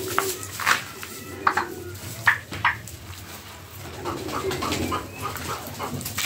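Young domestic turkeys (poults) feeding together: short high peeps and chirps and low purring calls, with sharp pecking clicks as they eat from the bowl.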